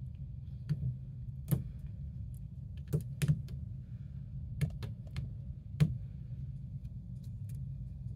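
Irregular sharp taps and clicks, about ten of them, as a cat's paw and claws strike a suction-cup spring toy and the hard tabletop it is stuck to. A steady low hum runs underneath.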